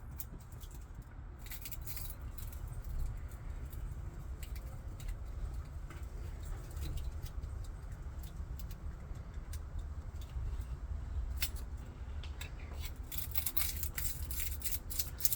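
Scraping and rubbing of an abrasive on a furnace flame sensor rod as it is cleaned of the buildup that was making the furnace short-cycle, with scattered small clicks of handling that grow denser near the end, over a steady low rumble.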